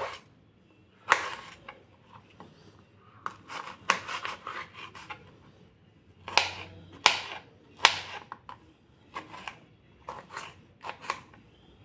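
Kitchen knife slicing a green bell pepper and tapping down onto a plastic cutting board, in irregular cuts, some single and some in quick runs, with short pauses between.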